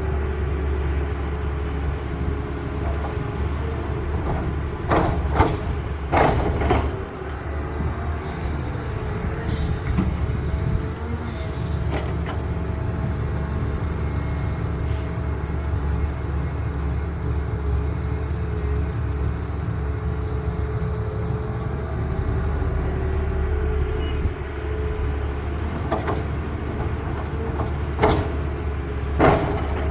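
Heavy diesel engine of a CAT excavator running steadily. A cluster of sharp clanks and bangs comes about five to seven seconds in, and a few more near the end.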